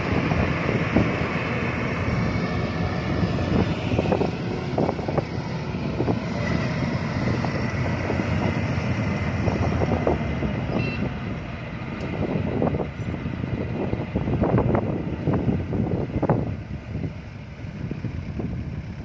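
Yanmar AW82V crawler rice combine harvester running in the field, a steady loud engine and machinery drone with irregular crackles, easing a little near the end.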